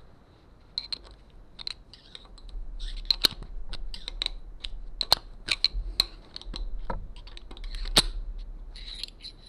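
Steel screwdriver tips clicking and scraping against a motorcycle's steering-head bearing race as it is pried out of the head tube, the race having been shrunk by a weld bead laid inside it. The clicks come irregularly, several a second at times, the loudest about eight seconds in.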